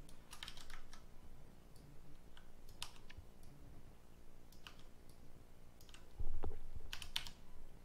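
Scattered clicks of a computer mouse and keyboard being worked at a desk. There is one louder low thump about six seconds in.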